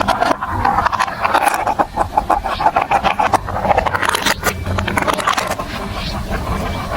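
Marbles rolling down a plastic building-block marble run: a steady rolling rumble with many quick clicks and clacks as they drop onto and knock against the pieces.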